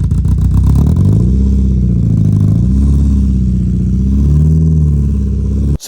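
Mazda MX-5's four-cylinder petrol engine running and being blipped up and down a few times, with a suspected misfire that the owner thinks could be spark plugs, HT leads, the intake manifold gasket or the injectors. The sound cuts off suddenly near the end.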